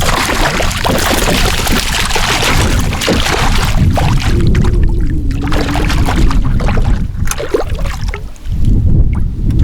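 Wind buffeting the microphone with a heavy rumble, strongest in the first few seconds, while water splashes and sloshes around a canoe, with scattered knocks against the hull.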